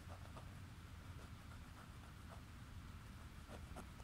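Large kitchen knife sawing through the crisp crust of a round bread roll, with faint scattered crackles as the crust gives way, over a low steady hum.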